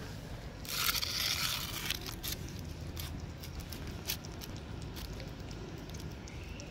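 A cat eating wet food from a foil tray: scattered small wet clicks and smacks of chewing and licking. A brief rustling scrape about a second in.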